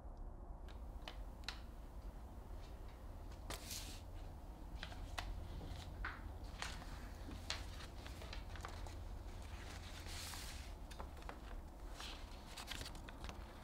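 Paper rustling and crackling as a handwritten letter is taken from its envelope and unfolded, in sharp irregular crinkles over a low steady room hum.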